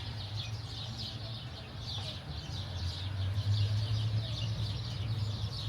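A crowd of small birds chirping rapidly and continuously, over a steady low hum that grows louder about three and a half seconds in.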